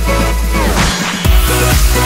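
Electronic dance music backing track. Partway through, a falling sweep plays, the bass cuts out briefly, and then the beat comes back in.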